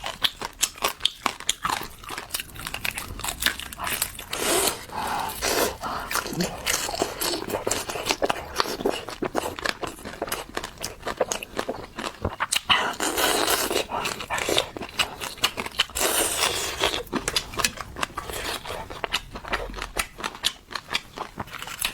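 Close-up eating sounds: biting and chewing crispy fried food, with dense rapid crunches and crackles throughout.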